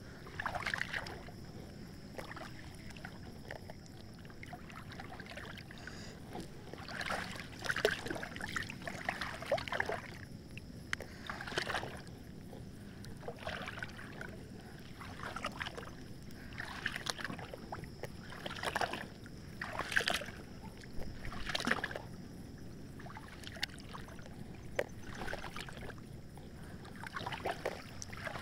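River water sloshing and splashing in irregular short bursts every second or two as a spearfisher moves through it. A faint steady high tone runs underneath.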